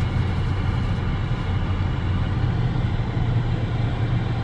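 Steady car engine and road rumble heard from inside the cabin while the car moves slowly.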